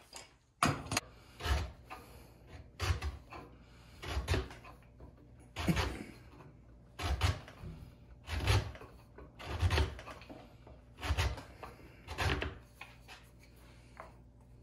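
About ten slow, regular strokes of a hand tool on a wooden block clamped in a bench vise, one roughly every second and a quarter, each a short scrape with a dull thud. They stop about two seconds before the end.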